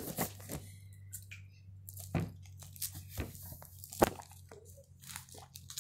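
An orange being peeled by hand: a scatter of short snaps and soft tearing as the rind is pulled away, the sharpest snaps about two and four seconds in.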